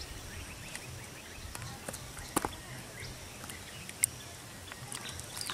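Hands and a stick working in wet mud in a flooded field: faint squelching and scraping, with two sharp wet clicks, one about two and a half seconds in and one about four seconds in.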